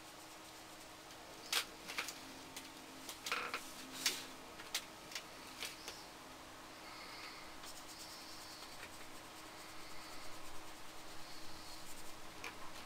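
Paintbrush working acrylic paint onto paper: faint scratchy strokes in the second half, with about seven light clicks in the first half.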